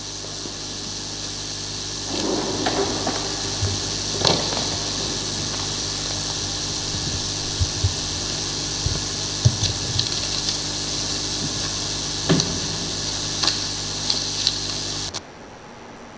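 Steady hiss and electrical hum from a pulpit microphone's sound system, with scattered small knocks and rustles picked up by the microphone. The hiss cuts off suddenly about fifteen seconds in.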